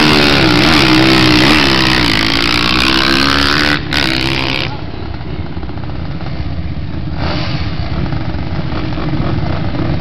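Dirt bike engines at full throttle launching off a drag-race start, the pitch climbing and dipping through gear changes with a brief drop near four seconds. About five seconds in it cuts off abruptly to a duller, steadier engine noise.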